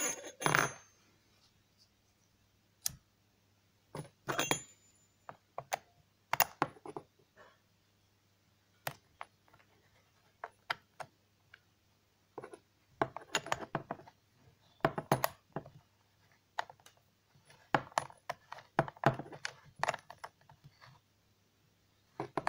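Scattered sharp metallic clicks and clinks in irregular clusters, from the chainsaw's chain, bar and hand tools being handled during assembly.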